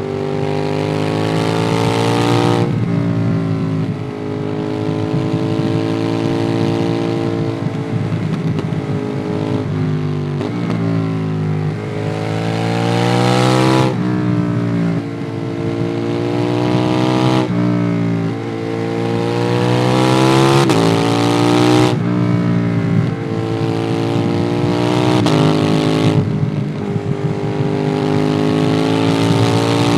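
Ducati Monster 821's 821 cc L-twin with a QD Twin Gunshot aftermarket exhaust, heard on board while riding. The engine pulls up through the revs several times, each climb cut off by a sudden drop in pitch at the gear changes, with steadier cruising in between.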